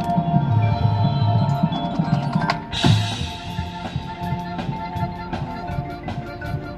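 Marching band playing: held chords over low drum hits, then a sudden loud crash about three seconds in, followed by quick, light percussion clicks under the sustained tones.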